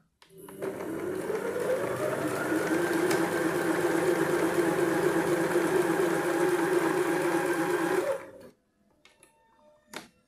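Singer SH-660 household electric sewing machine sewing a test seam: the motor speeds up over about two seconds to a steady running hum, runs for about eight seconds, then stops abruptly. A single short click follows near the end.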